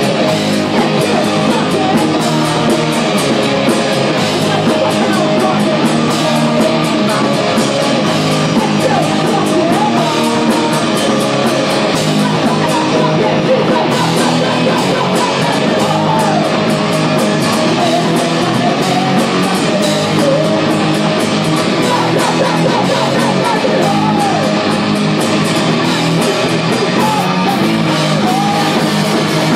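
Live hard rock band playing loud, led by electric guitars.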